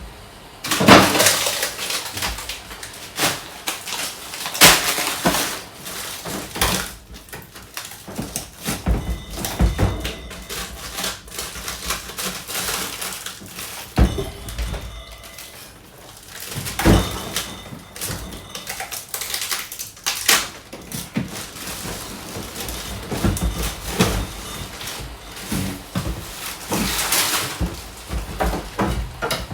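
Irregular knocks, thunks and rustling as food containers and packets are handled and moved about while a refrigerator is being emptied and cleaned out.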